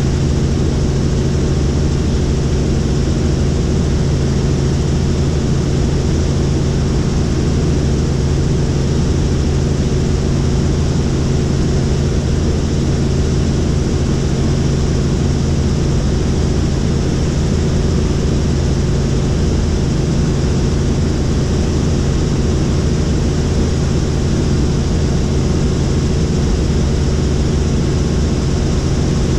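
Helicopter in flight, heard from on board: a steady, unbroken drone of engine and rotor with a constant low hum and a hiss of rushing air above it.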